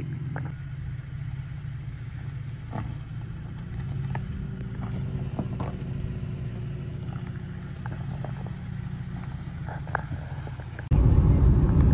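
2023 Toyota Tacoma TRD Pro's 3.5-litre V6 running low and steady as the truck crawls over rocks, with scattered clicks and knocks from stones under the tyres. About a second before the end it gives way suddenly to louder, steady road noise of a truck driving on the highway.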